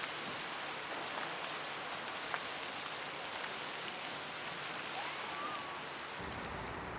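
Fountain water spraying and splashing: a steady hiss dotted with small drop splashes. About five seconds in there is a brief whistle-like tone. A little after six seconds the sound changes abruptly to a lower, rumblier noise.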